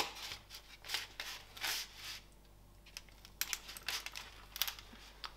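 A sharp click at the very start, then a knife cutting into a cream cake in a run of short scraping, crackling strokes as the blade saws through it and scrapes on the plastic cake tray.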